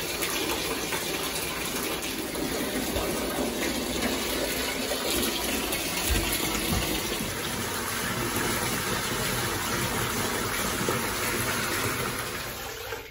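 Bathtub tap running, water gushing into a filling tub in a steady rush. There is a brief low thump about six seconds in, and the flow sound drops away near the end.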